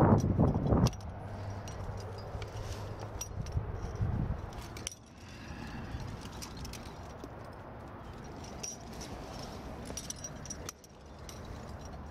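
Trad-climbing rack jangling: carabiners and gear on a climber's harness clinking in scattered light clicks as he moves up the rock. A louder scuffing burst in the first second.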